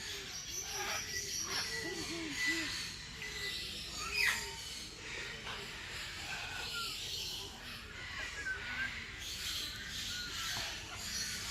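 Captive parrots and other birds calling: assorted chirps and whistles, with a quick run of short low repeated calls in the first few seconds and one louder call about four seconds in.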